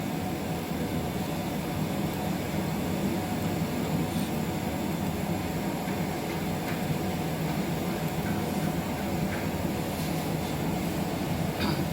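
Steady low mechanical hum of running room machinery, with a few faint ticks.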